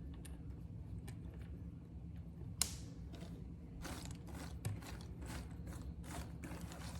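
Cardboard jigsaw puzzle pieces clicking and tapping as they are picked up and set down, over a low steady hum, with one sharper click about two and a half seconds in.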